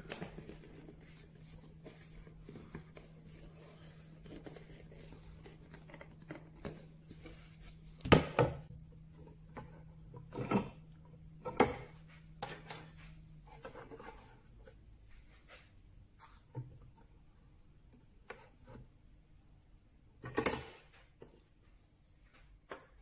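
Wooden parts and small tools being handled and set down on a wooden workbench: scattered sharp knocks and clicks with some rubbing, a few of them louder. A faint steady hum runs underneath until about halfway through.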